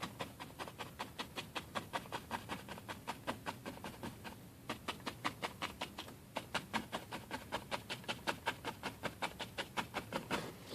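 Paintbrush dabbing on a stretched canvas, a fast even run of short strokes at about six a second with two brief pauses, laying yellow-and-white highlights on a painted tree.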